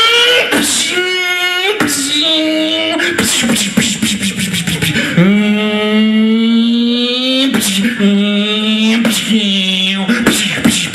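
A man vocally imitating a Formula 1 car through a stage microphone and PA: a buzzing engine-like whine that climbs in pitch, drops back and climbs again several times, like a car pulling away from the start and shifting up through the gears.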